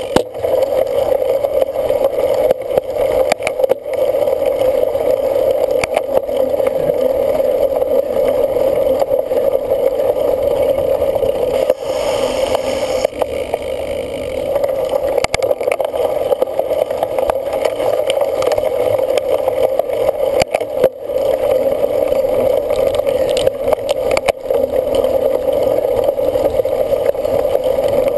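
Cyclocross bike being ridden at race pace: steady running noise from the tyres and drivetrain, with frequent clicks and rattles from rough ground and a brief hiss about twelve seconds in.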